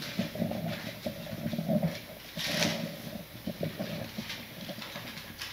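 Pages of a Bible being leafed through, with a short papery rustle about two and a half seconds in and small handling clicks. A low hum of voice runs through the first two seconds.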